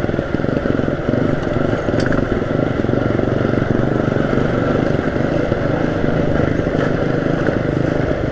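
Small 125–150 cc motorcycle engine running steadily while being ridden.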